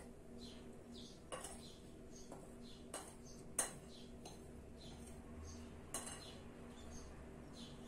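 A spoon clinking against a glass mixing bowl as the flour mixture is scraped out, about four sharp clinks with the loudest a little past three seconds in. Faint bird chirps repeat throughout over a low steady hum.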